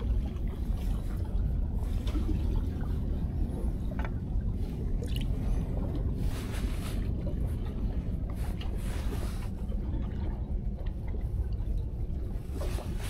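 Sea water sloshing and gurgling among breakwater tetrapods, a steady low rumble, with a few brief rustles from handling the bait and line.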